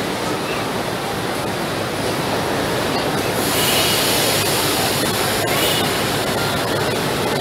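Busy railway station concourse: a steady wash of crowd and train noise, with a loud hiss setting in about three and a half seconds in and lasting a couple of seconds.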